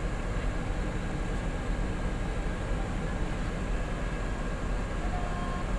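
Steady low rumble and hum inside the cabin of a parked coach bus, its engine idling and its air-conditioning running.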